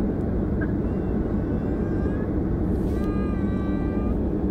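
Steady rumble of a jet airliner heard from inside the cabin as it taxis, engines running at an even idle. About three seconds in, a brief high-pitched wavering tone sounds for about a second over the rumble.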